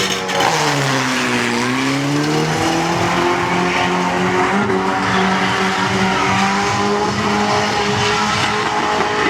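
Car engine held at high revs during a burnout, with tyres squealing as they spin. The engine note dips about a second in, climbs back and then holds steady.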